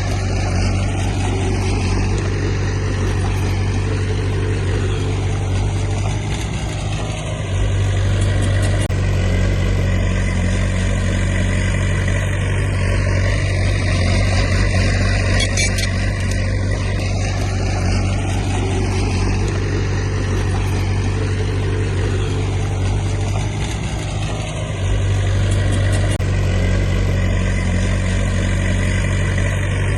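Heavy diesel engine of earthmoving machinery running steadily under load, with a brief dip in level twice.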